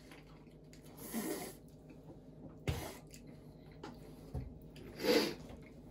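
A person breathing out sharply twice, the second time louder near the end, with a small knock and a dull thump between.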